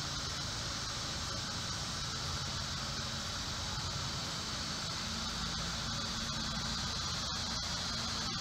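Steady outdoor pond-side ambience: an even hiss strongest in a high band, over a faint low hum, with no distinct events.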